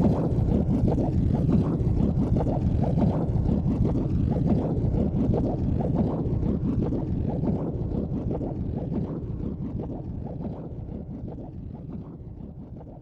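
A low, rough rumbling noise that fades out gradually over several seconds.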